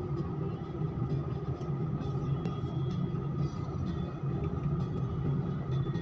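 Steady road and engine rumble heard inside the cabin of a moving car.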